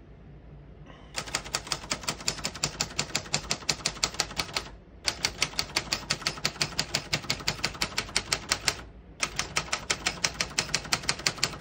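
Typing on a 1967 Royal Lark portable manual typewriter: typebars strike the platen in quick, even runs of about eight strokes a second, in three spells with two short breaks.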